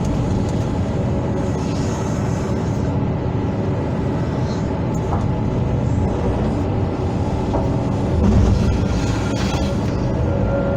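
Hydraulic excavator's diesel engine running steadily while working, with a brief louder surge about eight seconds in as the engine takes load.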